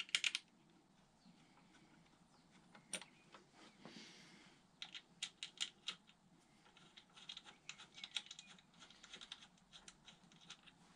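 Faint, irregular light clicks and ticks of hand tools on metal: a T30 Torx bit held in a ring spanner working a bolt loose, with a quick cluster of clicks at the start and denser runs of ticking in the second half.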